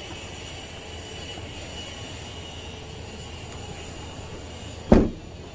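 Steady low background drone, with one sharp thump about five seconds in.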